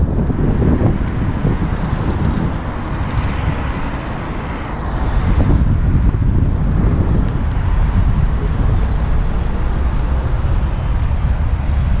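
Steady wind rumble on the microphone of a camera riding on a moving bicycle, mixed with the sound of motor traffic on the surrounding roads. It eases briefly about four to five seconds in.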